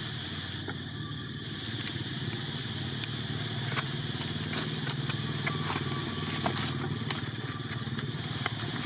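Dry fallen leaves crackling and ticking in scattered clicks as a macaque mother and infant walk over them, starting about three seconds in. Under it, a steady low hum and a steady high insect drone.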